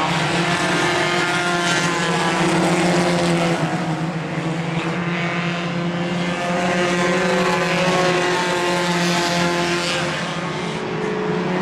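Several stock-car racing engines running hard together as a pack laps the oval, the sound swelling and easing a little as the cars pass.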